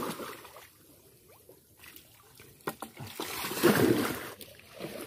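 Shallow water splashing and sloshing as people wade and grope for fish by hand. A splash fades out at the start, and a longer stretch of splashing comes about three to four seconds in, with a few small knocks.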